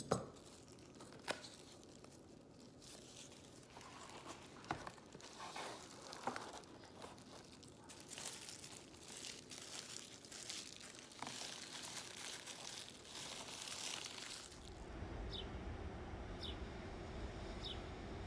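Crinkling and rustling of Mylar foil balloon being cut with scissors into strips and worked into a loom, with scattered sharp clicks. About 15 seconds in this gives way to a steady low hum.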